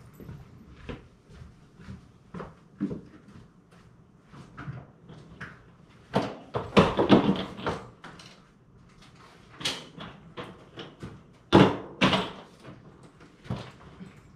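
Door and hard-shell suitcases being handled at a doorway: soft footsteps and light knocks, then two bursts of louder clatter and bangs with a short echo, about six to eight seconds in and again around twelve seconds in.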